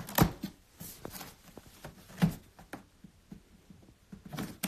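Handling noise: scattered light taps and rustles from a cardboard drone box being held and moved close to the microphone.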